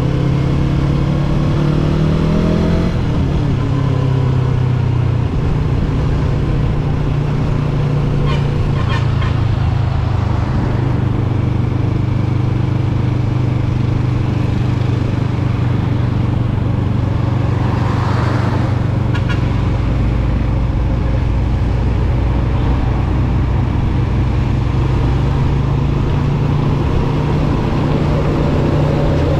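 Yamaha R3 motorcycle's parallel-twin engine, revving up over the first few seconds, then running at a steady cruising pitch.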